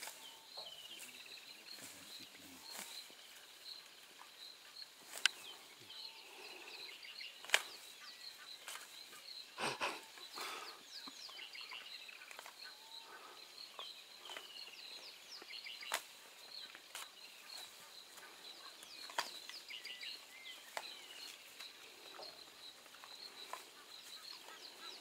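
African wild dogs (painted wolves) feeding on a carcass: scattered sharp cracks and snaps of meat and bone being torn, loudest a few times, over high short falling chirps and a steady high pulsing note.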